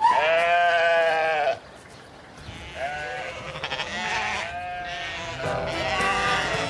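Sheep bleating: one long, loud bleat, then several shorter, quieter bleats.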